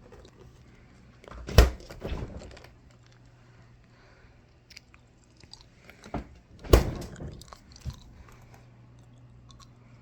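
Ice cubes being crunched and chewed in someone's mouth: two loud crunches about five seconds apart, each with softer chewing after it.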